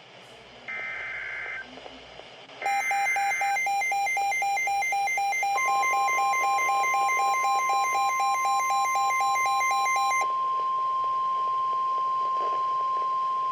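NOAA Weather Radio alert sequence for a new warning. It opens with two short warbling bursts of SAME digital header data. About 2.6 s in, rapid electronic alarm beeping starts, and a steady single-pitched warning alarm tone joins about 5.5 s in; the beeping stops near 10 s while the tone continues.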